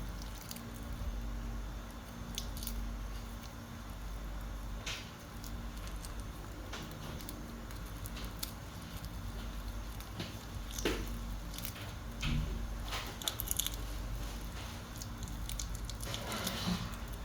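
Small wet crunching and clicking sounds of a baby monkey biting and chewing a cicada, over a steady low hum.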